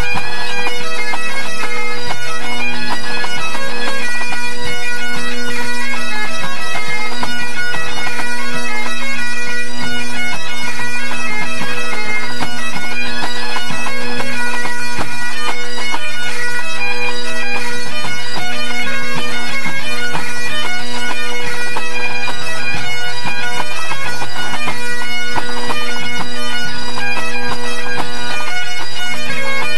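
A pipe band's Great Highland bagpipes playing together during the band's tune-up, loud and continuous: a steady drone hum under the chanters' fast-moving melody.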